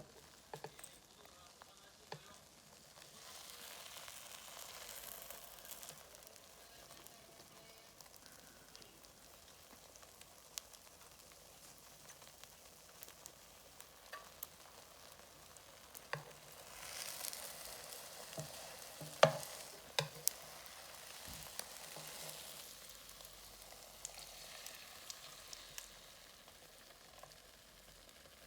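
Food sizzling in a frying pan, the sizzle swelling in a few stretches, with light clicks and taps of a utensil against the pan and one sharper knock about two-thirds through.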